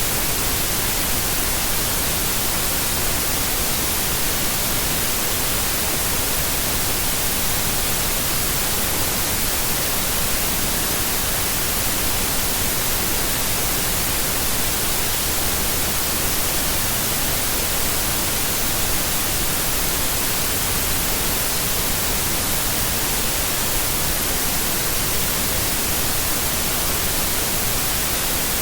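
Steady white noise: an even, unbroken hiss across the whole range, brightest in the highs, with no change in level.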